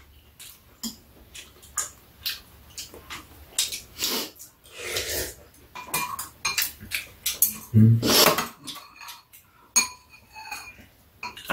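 Metal spoons and chopsticks clinking and scraping against bowls during a meal, in many short irregular clicks, with a heavier knock about eight seconds in.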